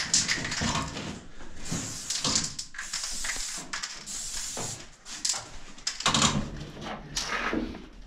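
Irregular scuffing, rustling and scraping of a person clambering among rusty steel beams, with clothes and shoes rubbing against the metal.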